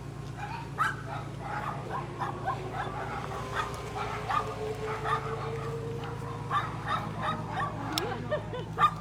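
Dog barking and yapping over and over, about two or three short barks a second, over a steady low hum.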